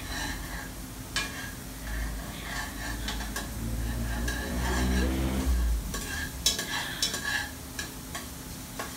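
Metal spoon stirring and scraping inside a stainless steel pot while garlic and onion sizzle in hot oil, with scattered clinks of the spoon against the pot, a few louder ones about two-thirds of the way through.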